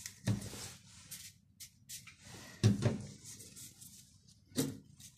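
Crinkling of a clear plastic packet as a gloved hand pulls a fresh sensor-cleaning tissue from it: several short crackles, the loudest about two and a half seconds in and again near the end.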